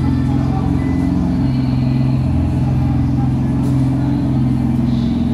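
Nissan GT-R R35's twin-turbo V6 idling steadily, a low even rumble with no revs.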